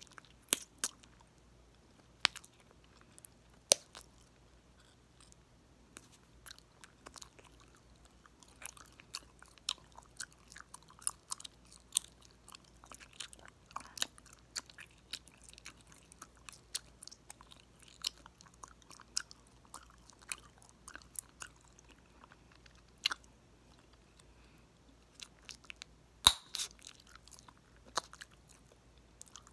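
Close-miked chewing of bubble gum: a run of wet mouth clicks and smacks, with several sharp gum pops standing out, the loudest near the end.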